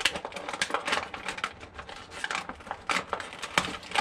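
Stiff, heavy-duty plastic packaging being forced open by hand, giving a dense, irregular run of crackles and sharp snaps.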